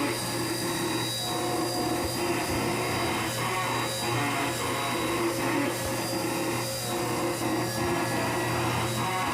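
CNC vertical machining centre milling an aluminium part: a steady high-pitched spindle whine over a rasping cutting noise that comes and goes in patches.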